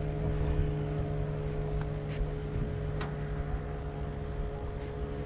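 A motor on the boat humming steadily at a fixed pitch, over a low uneven rumble, with a few faint clicks.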